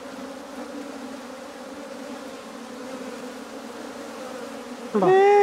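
A cluster of honeybees covering a man's face as a bee beard, humming steadily.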